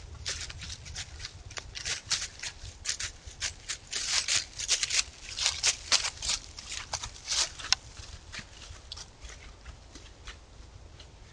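White-tailed deer walking through dry fallen leaves: irregular crunching steps, thickest in the middle and trailing off near the end.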